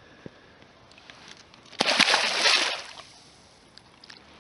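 A catfish being released into the lake, splashing and sloshing the water for about a second, about two seconds in.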